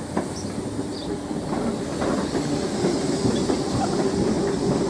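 Class 313 electric multiple unit running past along the platform: steady wheel-on-rail noise with scattered clicks, growing louder about two seconds in.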